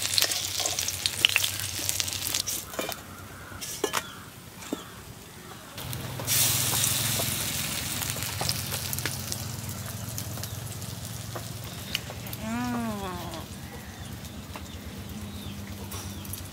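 Pumpkin-flower fritters in gram-flour batter sizzling and crackling in mustard oil in a karai, with a spatula clinking and scraping against the pan. The sizzle grows louder about six seconds in, and a short wavering call sounds once about twelve seconds in.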